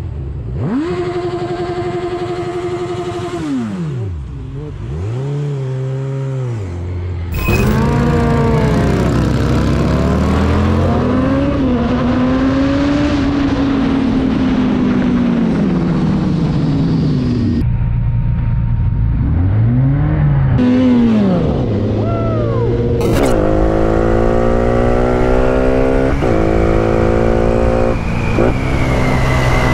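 Motorcycle engines heard from the riders' bikes in three separate clips, the engine pitch rising and falling with throttle and gear changes, with a steady rush of wind noise. Near the end the engine accelerates through the gears, the pitch climbing and dropping back at each upshift. The sound changes abruptly at two cuts, about a quarter and three quarters of the way through.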